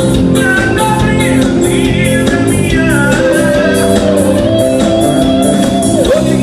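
Music: a song with a singing voice over a steady beat and guitar.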